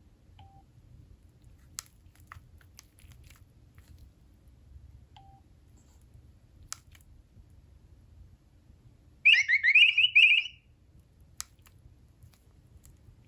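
Nokia 3300b handset being operated: scattered quiet button clicks and two short key beeps, then about nine seconds in a loud burst of rapid warbling electronic tones from the phone's speaker lasting just over a second.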